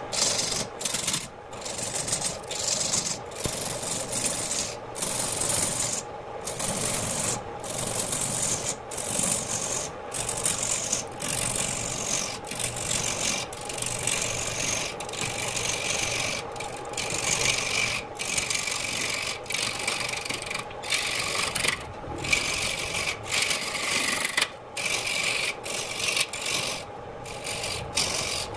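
Turning tool cutting into a redwood blank spinning on a wood lathe: a continuous rasping scrape of steel on wood, broken by short pauses every second or so between tool passes, over the steady hum of the lathe.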